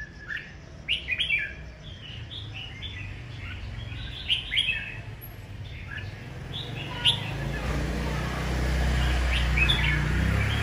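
Caged red-whiskered bulbul chirping in short bursts of quick, high notes, several times over. A low rumble comes in about seven seconds in and grows louder.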